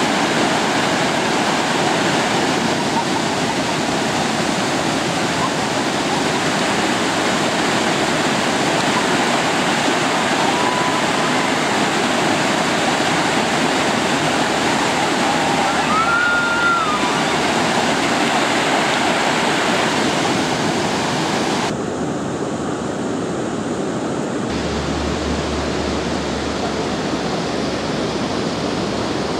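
Brenta river whitewater rushing steadily, heard up close from the water, turning slightly quieter and duller about two-thirds of the way through.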